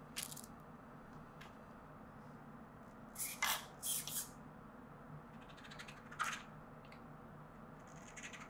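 Four short whirring bursts from the Axial SCX24's small brushed motor and drivetrain, spun up briefly in throttle blips from the radio during a first power-on test of a new ESC. The bursts come just after the start, twice about 3 to 4 seconds in, and once about 6 seconds in.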